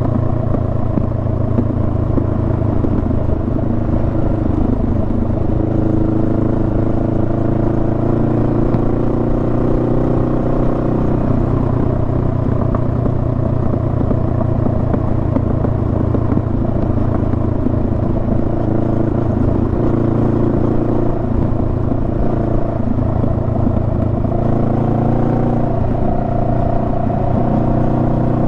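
Honda Rebel 500's 471 cc parallel-twin engine running under way. Its pitch climbs a little during the first third as the bike picks up speed, then holds steady.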